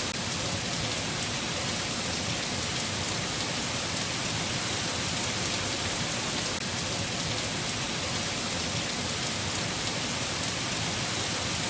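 Steady rain falling, an even hiss with no thunder or other events standing out.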